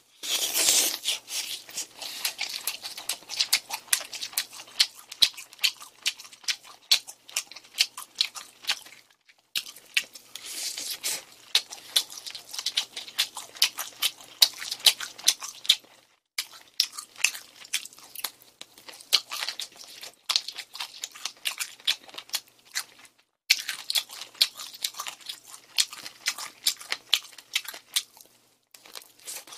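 Close-miked crunching and chewing of crispy honey-glazed fried chicken sprinkled with almonds: a dense run of crackly bites and chews that breaks off briefly three times.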